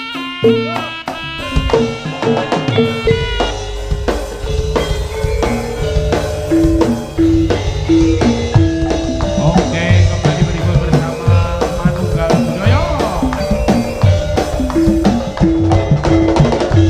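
Live Jaranan Senterewe accompaniment music: drums and percussion keep a steady, busy beat under short repeated pitched notes. The low drums come in fuller about three seconds in.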